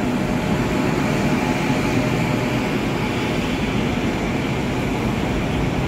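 Kolkata Metro train pulling into the station platform, a steady running noise of the train without any break or sudden change.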